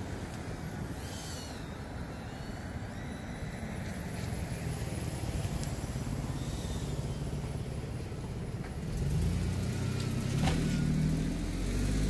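Road traffic noise, with a vehicle passing close by and growing louder with a low rumble in the last three seconds.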